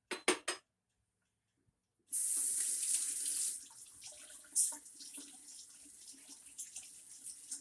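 A few sharp clicks, then a kitchen tap turned on about two seconds in: water runs hard into the sink, then more gently, with a few small clinks.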